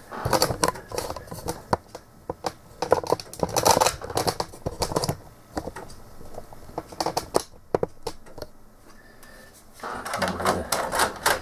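Amiga A500's internal 3.5-inch floppy drive clicking in bursts of rapid head-stepping at power-on and while it waits for a disk, then a floppy disk pushed into the drive near the end.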